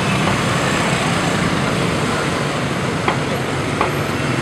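Busy intersection traffic, mostly motorbikes and scooters: a steady dense hum of many small engines running and passing. Two short sharp sounds stand out past the middle, under a second apart.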